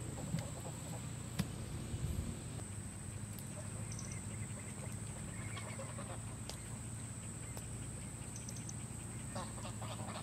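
Domestic ducks quacking now and then on a pond. In the first two seconds there are a few light knocks as the pumpkin lid is fitted back onto the hollowed pumpkin.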